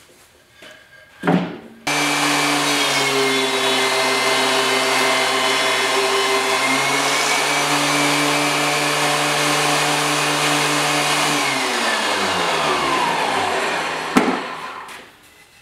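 DeWalt DW735 thickness planer with a spiral cutterhead, switched on about two seconds in and running at a steady high whine for about ten seconds while planing a test board. It is then switched off and its pitch falls as the motor and cutterhead wind down. A short knock comes just before it starts, and a click near the end.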